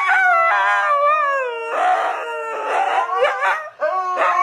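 Huskies howling together, long wavering howls with more than one voice overlapping and a rougher, noisier stretch about two seconds in. The howling breaks off briefly near the end, then starts again.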